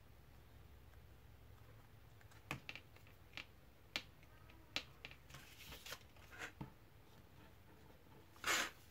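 Paper card being handled and folded on a cutting mat: scattered light taps and clicks, a brief rustle, then a short, louder rasp near the end.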